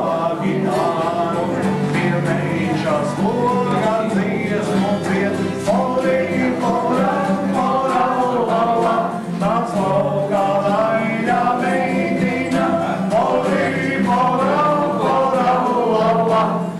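A group of voices singing a song together over steady low sustained notes.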